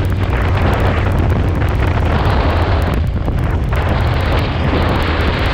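Wind buffeting the microphone on a moving sport motorcycle, a loud continuous rush over the low drone of the bike's engine, easing briefly about three seconds in.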